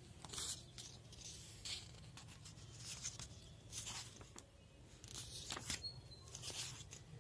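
Paper workbook pages being handled and turned: a series of short, soft rustling swishes, over a steady low hum.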